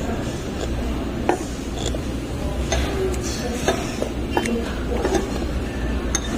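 Metal spoon scraping and clinking against a ceramic bowl while scooping shaved ice, with several separate sharp clinks. A steady low hum runs underneath.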